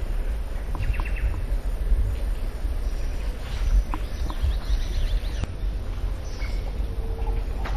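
Steady low rumble aboard a moving riverboat, with a few short, faint bird chirps over it.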